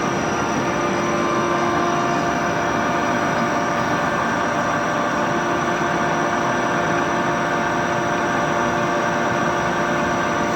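Metalworking machine tool running steadily: an even whirring noise with several steady tones held throughout.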